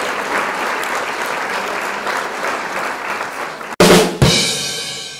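Applause, then a little under four seconds in two heavy drum hits with a cymbal crash that rings on and fades away.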